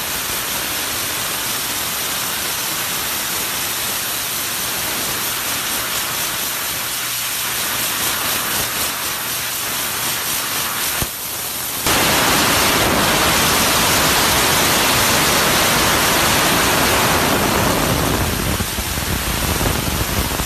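Steady hiss of compressed air blasting from an air blow gun clamped wide open, the jet holding up a floating, spinning screwdriver. Briefly dips just before twelve seconds in, then becomes louder.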